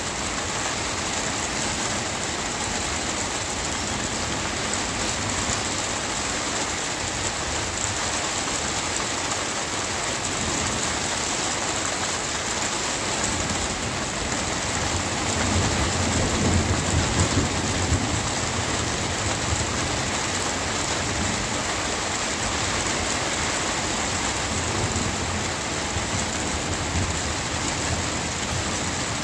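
Steady rain falling, with a low rumble of thunder swelling up about halfway through and dying away a few seconds later.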